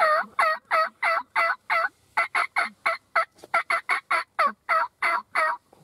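A long run of about nineteen loud turkey yelps, each note breaking from high to low. They start at about three a second, pause briefly near two seconds in, then come faster and more excitedly.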